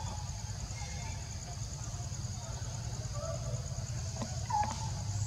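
Steady, high-pitched, evenly pulsing insect drone over a low rumble, with a few brief calls, the clearest about four and a half seconds in.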